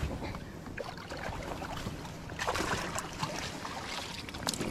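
Water splashing and dripping from a landing net as a fish is lifted beside a kayak, with a louder splash about halfway through and scattered small knocks and clicks of handling.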